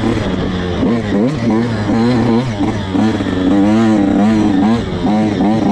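85cc two-stroke dirt bike engine revving up and down in quick, repeated surges, about three a second, as the throttle is worked on the race course.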